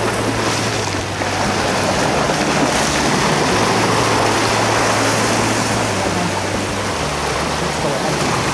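Sea surf washing against shore rocks, with a steady low hum beneath it that changes pitch about seven seconds in.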